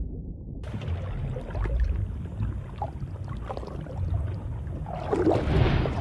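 Underwater ambience: a steady low rumble with scattered bubbling and gurgling clicks, swelling louder about five seconds in.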